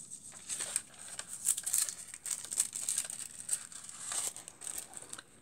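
Silver foil transfer sheet crinkling as it is peeled off and handled over black cardstock after foiling: an irregular run of dry crackles.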